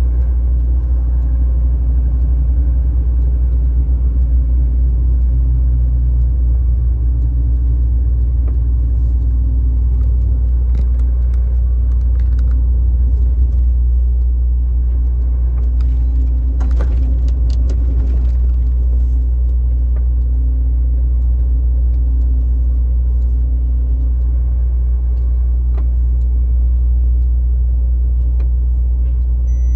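Steady low rumble of engine and tyre noise inside a car's cabin, driving at a constant highway speed.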